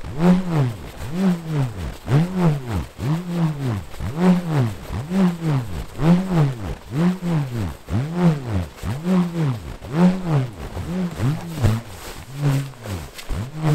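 Handmade bull roarer whirled overhead, giving a deep whirring roar that rises and falls in pitch in a steady rhythm, about once a second.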